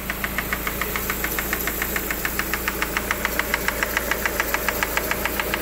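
Lada Granta engine idling with a fast, even metallic knock from the top of the engine, about seven or eight ticks a second. The mechanic traces it to a loose camshaft position sensor tapping against the timing gear; it had been taken for hydraulic lifters, con-rod bearings or a piston pin.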